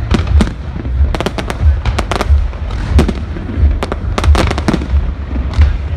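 Fireworks display going off: irregular sharp bangs and crackles, about two a second, some in quick clusters, over a steady low rumble.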